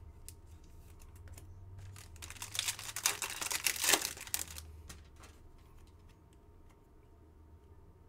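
Foil wrapper of a Panini Select football card pack crinkling and tearing as it is ripped open by hand, a crackling burst of about two seconds in the middle, with fainter rustles and clicks of the cards being handled around it.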